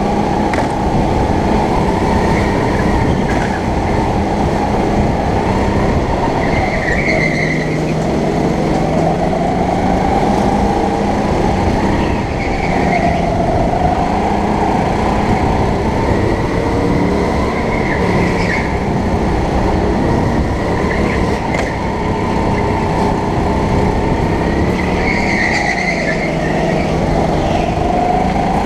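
Go-kart engine running hard, its pitch dropping and climbing again every few seconds as the kart brakes into corners and accelerates out, over heavy rushing noise on a helmet-mounted camera.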